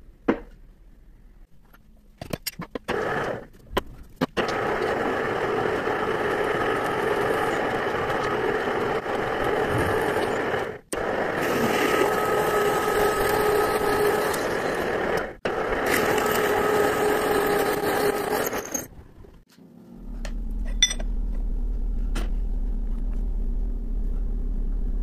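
Lathe cutting: a tool scraping steadily against a spinning workpiece, in three long stretches broken off suddenly twice. Near the end the cutting stops and a steady low hum from the machine runs on.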